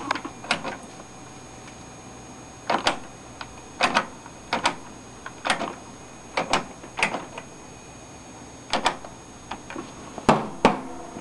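A series of sharp plastic clicks, some fifteen at uneven spacing and often in quick pairs, from the power button of an IBM 14P CRT monitor being pressed and released again and again.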